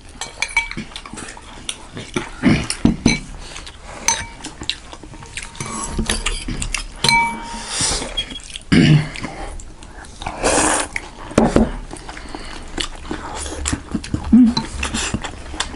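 Close-miked eating of momo dumplings and thukpa noodle soup: wet chewing and a few loud slurps, with spoons and cutlery clinking against bowls and plates.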